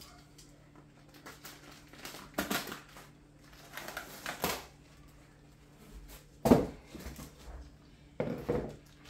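Cardboard packaging rustling and scraping in several short bursts as a potted plant is worked out of its cardboard sleeve, the loudest burst about six and a half seconds in.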